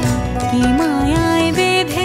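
Background music: a melody with sliding notes over a steady beat.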